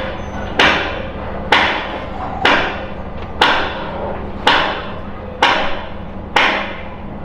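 Hammer striking metal during fairground ride assembly: seven slow, steady blows about one a second, each ringing briefly after the strike.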